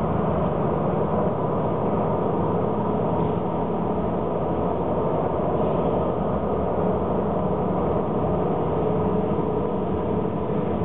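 Soundtrack of a video art installation: a steady, dense rumbling drone with faint held tones woven through it, unchanging throughout.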